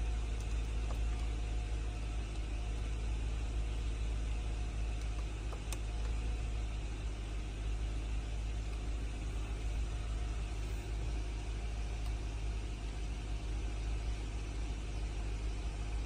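Steady running noise inside a Toyota 4Runner's cabin: the engine idling with the climate-control fan blowing, plus a couple of faint clicks from dash buttons being pressed.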